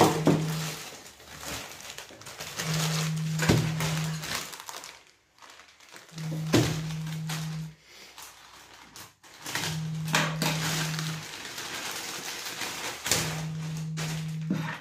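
A plastic courier mailer being cut and torn open by hand and its bubble-wrap packing handled: irregular crinkling and rustling with a few sharp clicks. Underneath, a low steady hum cuts in and out, about every three seconds.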